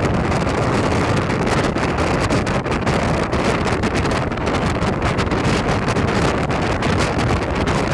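Train running across a railway bridge, heard from on board: a steady loud rumble with rapid, irregular clatter.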